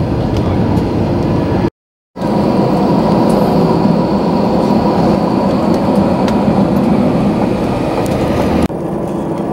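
Cabin noise inside an Airbus A321 moving on the ground: a steady rumble from the jet engines and wheels, with a faint steady whine. The sound cuts out completely for a moment about two seconds in, and drops slightly in level near the end.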